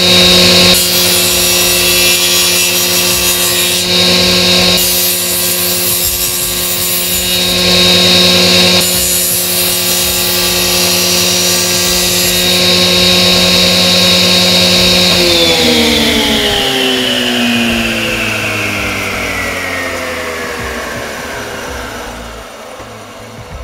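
Table saw running with a steady hum and high whine while a pine board is fed through the blade, the cutting louder in a few short stretches. About fifteen seconds in the motor is switched off and the blade spins down, its whine falling steadily in pitch as it fades.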